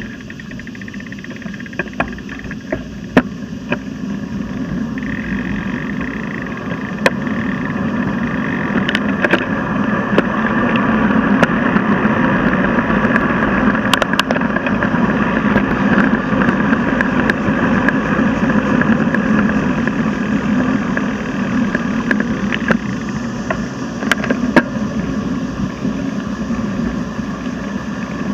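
Wind rushing over the microphone of a handlebar-mounted camera, with tyre and road noise from a bicycle riding along a paved road. The rush grows louder over the first ten seconds and then holds steady, broken by scattered short knocks as bumps shake the camera mount.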